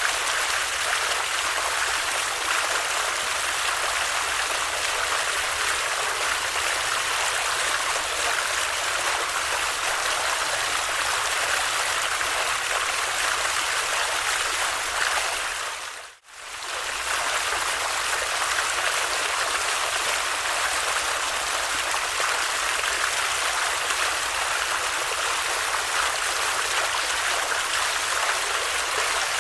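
Water in a stream flowing steadily. About halfway through, the sound briefly fades out to near silence and comes straight back.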